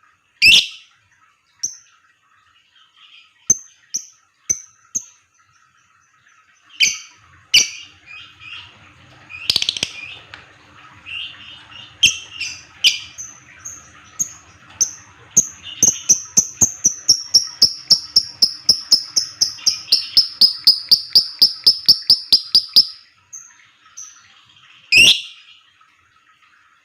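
Lovebird calling: loud sharp screeches now and then, and from about the middle a long, rapid run of evenly spaced high chirps, about seven a second for some seven seconds.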